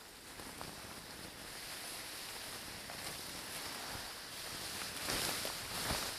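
Grass and reed stems rustling and brushing against the microphone as the camera pushes through dense vegetation, growing louder toward the end.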